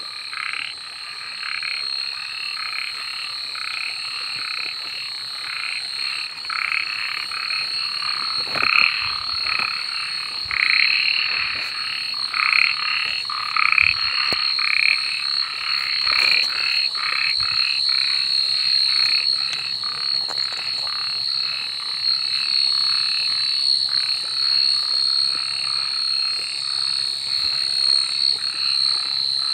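A chorus of frogs croaking, many short calls repeated rapidly and overlapping, over a steady high-pitched ringing.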